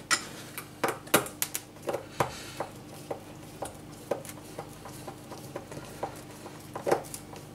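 A small self-tapping screw being driven into a wooden slat: a run of irregular light clicks and creaks, about two or three a second, with a somewhat louder click near the end.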